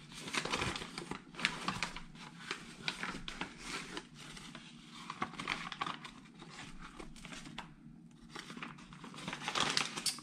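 Brown kraft-paper food wrapping crinkling and rustling as it is unfolded and handled by hand, in irregular bursts with a short lull about eight seconds in.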